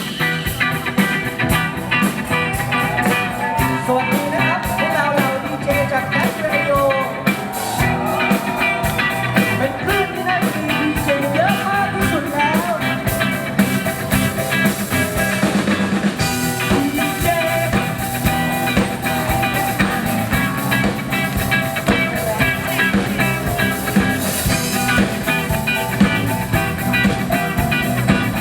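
Loud rock music with drums and electric guitar, a sung or lead melody line in the first half.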